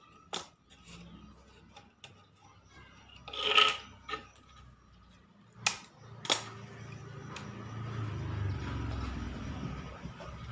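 Hand work on a wooden bird cage: scissors and the wooden frame being handled, giving a few sharp clicks and a louder scraping rub about three and a half seconds in. A low rumble builds in the background over the last few seconds.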